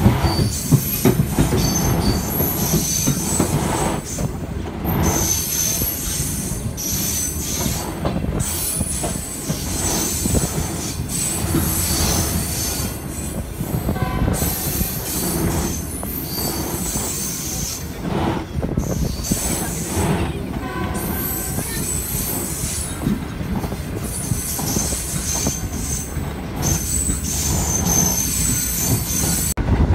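Pakistan Railways Green Line Express passenger train running: a steady rumble of wheels on the rails, with high-pitched squealing coming and going throughout.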